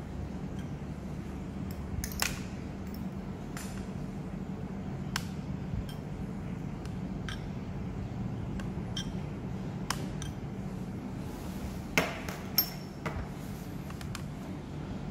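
Scattered light clicks and clinks of metal tweezers and a small ceramic cup against a stainless-steel counter and slate serving board, with two louder knocks close together near the end, over a steady low hum.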